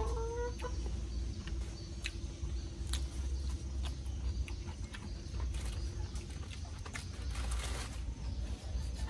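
Close-mic chewing of boiled tiger prawn wrapped in fresh herbs: scattered wet mouth clicks and smacks, with a short crisp crunch about seven and a half seconds in, over a steady low rumble.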